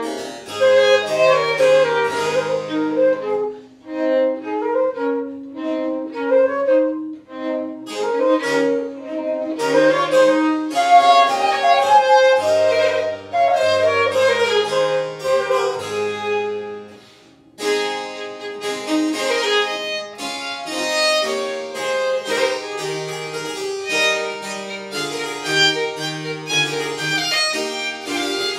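A baroque trio of traverso (wooden baroque flute), baroque violin and harpsichord plays a minuet, with a short break in the music a little past halfway through.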